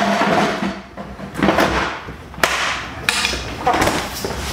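Clatter of ice and a freezer drawer being handled: several short rattling scrapes, with a sharp knock about two and a half seconds in.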